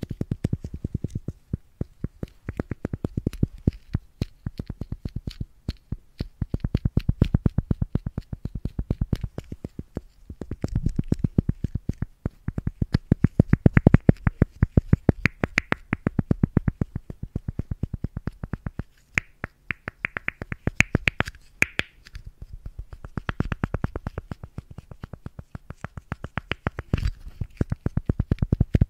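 Lid of a small round container clicked open and shut close to the microphone: quick runs of sharp clicks, several a second, with short pauses between the runs.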